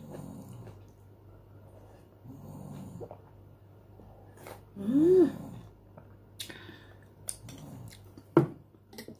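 A person drinking the last of the soto broth straight from a ceramic bowl: soft slurps, swallows and breaths through the nose, with a short closed-mouth hum that rises and falls about five seconds in, the loudest sound. A metal spoon knocks once against the bowl near the end.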